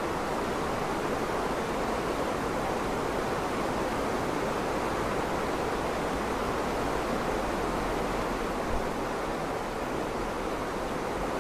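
Steady, even rushing noise with no pitch or rhythm to it, and one small knock about nine seconds in.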